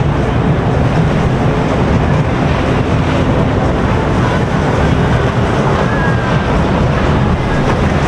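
Boat engines running, a loud steady rumble with no pauses.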